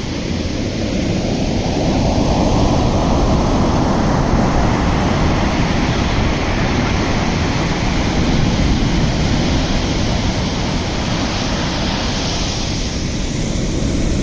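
Sea surf washing ashore, with wind rumbling on the microphone. The wash swells over the first couple of seconds and then holds steady.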